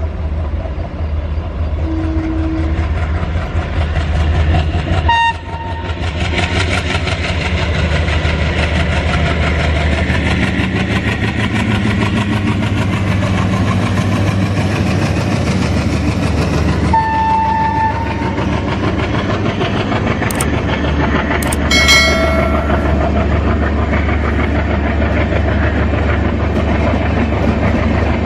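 Train running on rails with a steady low rumble and clickety-clack. Short horn tones sound a few times, the clearest about 22 seconds in.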